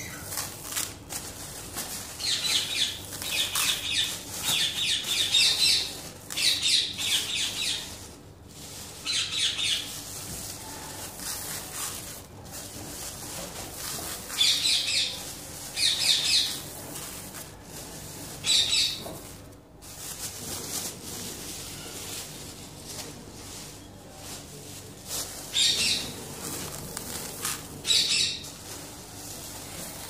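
Mixed bird seed poured from plastic bags into a plastic tub, in several spells of a few seconds each, with the bags rustling.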